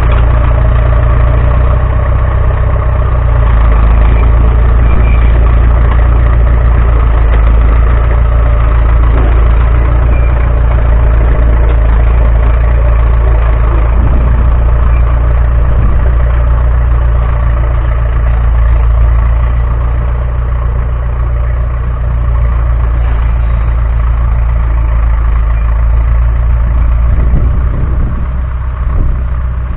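Diesel engine of heavy crawler machinery running steadily.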